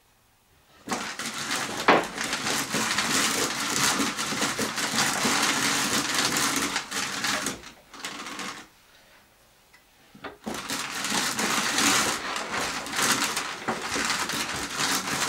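Hand-cranked drum carder turning, its pin-covered drums combing wool as it is fed in: a steady whirring rattle. It starts about a second in, stops for about two seconds just past the middle, then starts again.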